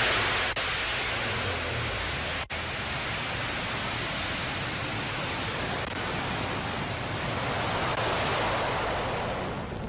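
New Shepard booster's BE-3 liquid-hydrogen/liquid-oxygen rocket engine firing at ignition and liftoff: a loud, steady rushing roar across the whole range of pitch. It cuts out for an instant about two and a half seconds in and fades near the end.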